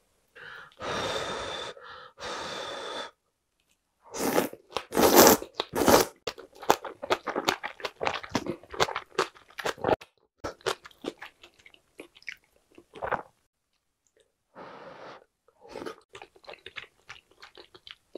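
A person slurping spicy noodles and chewing them close to the microphone: longer slurps in the first few seconds, then wet chewing with many quick mouth clicks.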